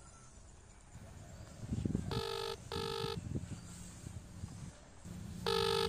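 Mobile phone ringback tone as a call is placed: a double ring heard twice, about three and a half seconds apart.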